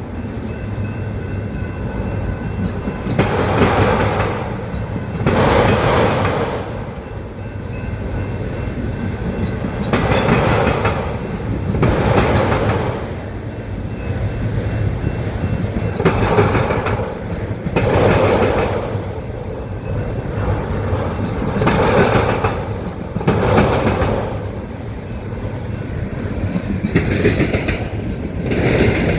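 Autorack freight cars rolling slowly past, with a steady rumble. Their wheel trucks clatter over the rail joints in regular pairs, a pair about every six seconds.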